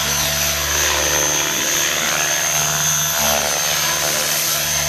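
Radio-controlled model helicopter in flight: its motor and rotor run with a steady high whine, the lower note shifting about three seconds in as it manoeuvres.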